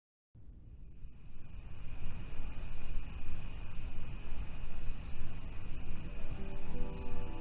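Nature-ambience sample fading in at the opening of a lo-fi hip-hop track: crickets chirring steadily and high over a low rumbling noise bed. It comes in from silence about a third of a second in, and faint musical notes begin to enter near the end.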